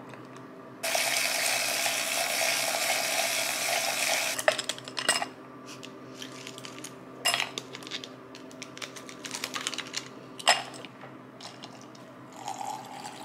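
Liquid poured in a steady stream from a bottle into a glass for about three and a half seconds. Then an ice-cube tray is twisted, with clicks and sharp clinks as cubes drop into the glass. Near the end comes a brief gurgle of milk poured from a carton.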